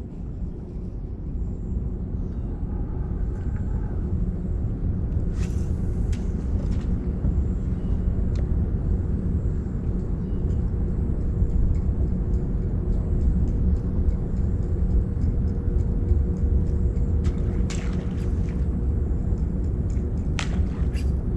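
Small boat's motor running at a steady speed with a constant low rumble and hum, with a few short sharp knocks along the way.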